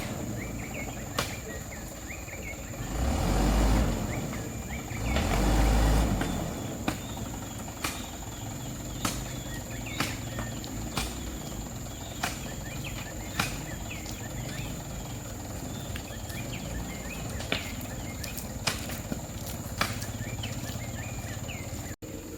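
A vehicle engine running low and steady in the background, with birds chirping throughout. There are two short swells of low rumble in the first few seconds, and scattered sharp clicks.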